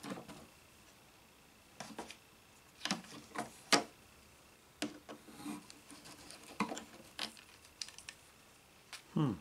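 Scattered clicks, taps and short scrapes of a plastic pickguard being lifted off a 1966 Guild Starfire's body, with the sharpest tick a little under four seconds in.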